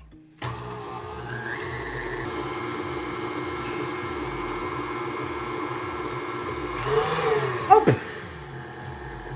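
KitchenAid Artisan stand mixer switched on about half a second in, its motor running steadily as the flat paddle creams softened butter and peanut butter at medium speed. Around eight seconds in the motor note drops and there are a couple of sharp clicks.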